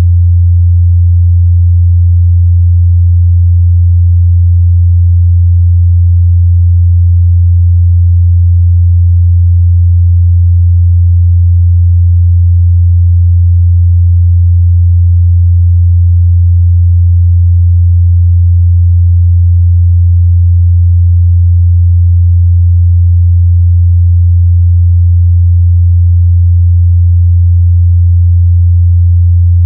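Steady, loud 87 Hz sine-wave test tone, a single low hum held at constant pitch and level.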